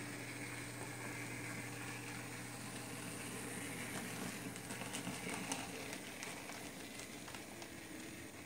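H0e scale model narrow gauge steam locomotive (HF 110) running slowly on its track: a steady electric motor hum with light hiss, and a few light clicks about halfway through as the wheels run over the rail joints and points.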